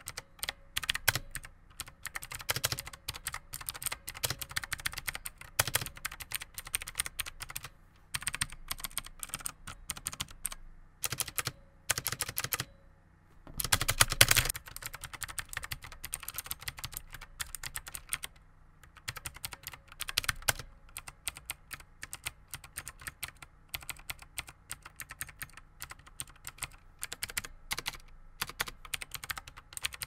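Typing test on a Marvo BigBang S1 (KG934) tenkeyless mechanical keyboard: rapid, continuous key clicks with a few brief pauses and a louder flurry about halfway through. A steady hum from a loud PC graphics card fan sits underneath.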